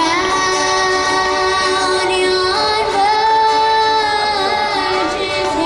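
A young girl singing into a microphone over her own acoustic guitar, amplified through a PA, holding one long note about three seconds in.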